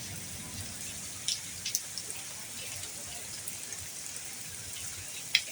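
Light rain dying away: a steady soft patter with scattered drops, a few sharper drip taps about a second and a half in and again near the end.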